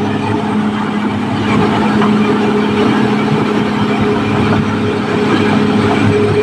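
Caterpillar D6R XL bulldozer's diesel engine running steadily, a constant hum with a dense mechanical clatter over it.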